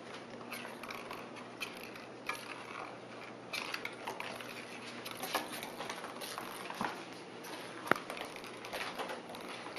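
Kittens scrabbling and pouncing on a hardwood floor while batting a miniature basket about: irregular light taps, scratches and clicks, the sharpest a single click about eight seconds in.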